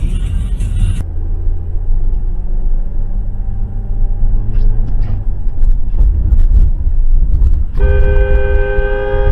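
Low, steady road and engine rumble of a car driving on a snowy road, recorded by its dash cam. Near the end, a car horn sounds one steady blast of about a second and a half.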